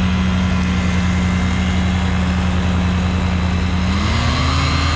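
Shadow microlight's Rotax 503 two-stroke twin and pusher propeller running steadily while taxiing, then speeding up about four seconds in as power is added for a turn.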